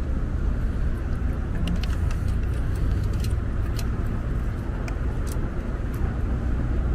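Scattered light clicks and taps from handling the e-bike controller's plastic wire connectors, over a steady low rumble.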